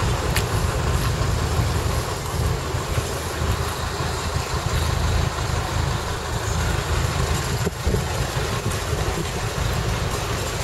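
Tractor engine idling, a steady low rumble.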